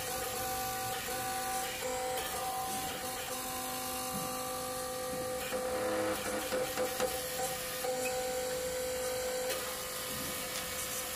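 Steady whining hum of a 150-ton workshop press's motor and pump while its ram pushes the shaft of a water pump housing. About six seconds in the sound turns uneven for a second or so, with a few knocks.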